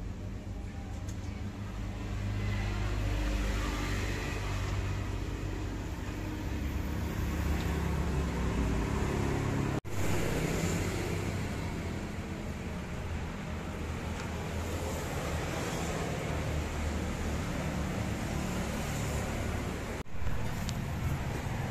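Daihatsu Ayla 1.2 engine idling through an aftermarket double-muffler exhaust: a steady low rumble from the tailpipe. The sound breaks off for an instant twice.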